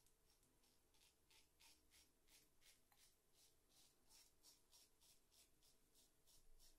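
Faint rasping of a shavette razor blade scraping through two-day stubble on a lathered face, in short strokes about three a second.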